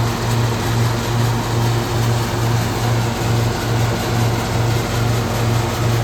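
Hazelnut threshing machine (patoz) running steadily under engine power, with a low hum that pulses about twice a second.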